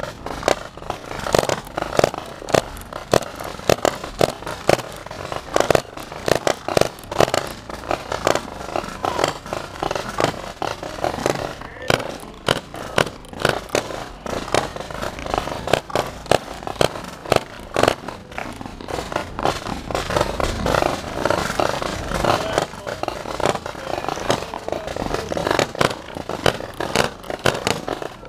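Paintball markers firing from several shooters at once: a dense, irregular run of sharp pops, several a second, over the steady rolling noise of the moving train car.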